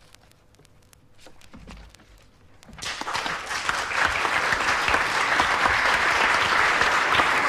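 A live audience bursts into applause about three seconds in, swelling to full clapping at the end of a poem. Before it there is a faint pause with scattered clicks of worn-vinyl surface noise.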